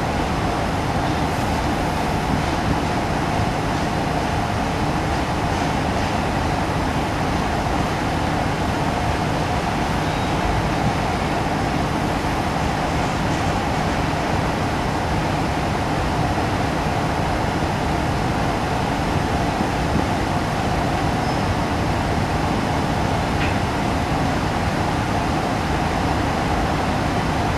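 Slow-moving BNSF grain train of covered hopper cars rolling steadily along the track, heard from inside a parked car.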